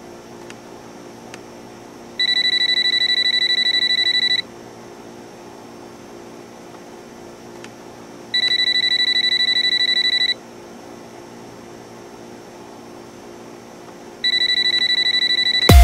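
Telephone ringing with an electronic trill: three rings of about two seconds each, four seconds apart.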